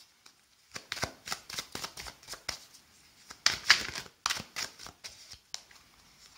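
A tarot deck being shuffled by hand: cards slipping and tapping against one another in quick, irregular strokes, loudest a little past halfway.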